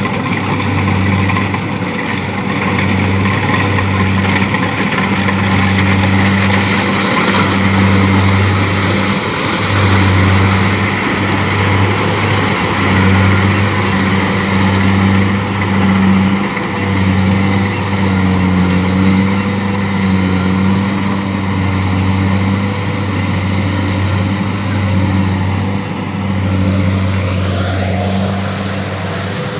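Kubota DC-70 rice combine harvester running, its diesel engine a steady loud drone under a dense mechanical din. Near the end a whine rises in pitch.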